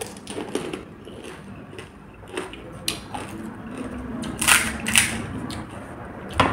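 Chewing a crisp pani puri, then sharp crackles as the thin fried puri shells are cracked open with a thumb, the loudest two about four and a half and five seconds in and another just before the end.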